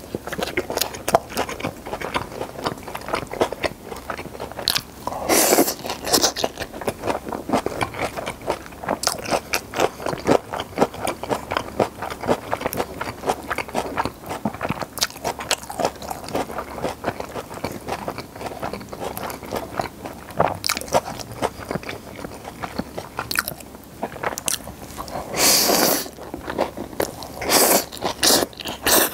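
Close-miked chewing and biting of steamed flower buns and stir-fried pepper japchae: a steady run of quick wet mouth clicks and crunches, with two longer, louder sounds about five seconds in and near the end.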